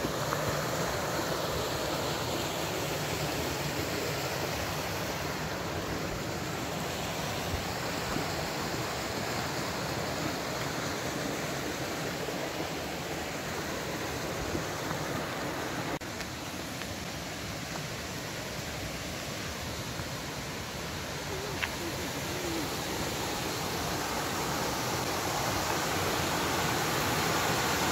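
Waterfall rushing: a steady, even noise of falling water that drops a little about sixteen seconds in and grows louder near the end.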